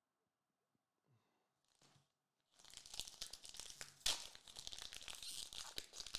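A foil trading-card booster pack being torn open by hand: a long crinkly tearing and crackling of the wrapper that starts about two and a half seconds in, with its sharpest rip about four seconds in.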